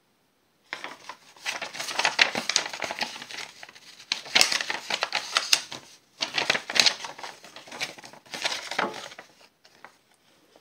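Sheets of paper being handled and crinkled close to the microphone, a dense crackling with many sharp ticks that stops briefly about halfway through.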